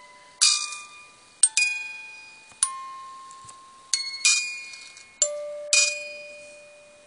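Music box movement of a 1945 Evans "Top Kick" musical lighter playing a slow tune. The plucked metal notes come roughly one a second, sometimes two close together, and each rings out and fades.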